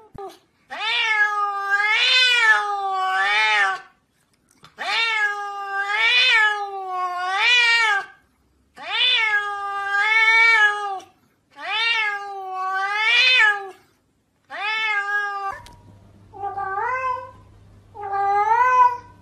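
Domestic cats meowing over and over in long, drawn-out calls, each one to three seconds and wavering in pitch. About fifteen seconds in the calls turn shorter, with a faint steady hum beneath them.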